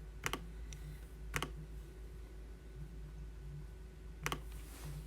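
A few separate clicks of computer keys, spaced a second or more apart, with a quick double click about four seconds in, over a faint low hum.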